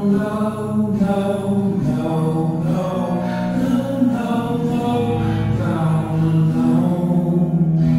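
Background music of long held notes that change pitch every second or so.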